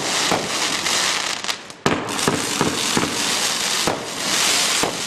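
Titan's Fury 18-shot consumer fireworks cake firing: a string of sharp reports, about two a second, from shells launching and bursting, over the steady crackle of the bursts.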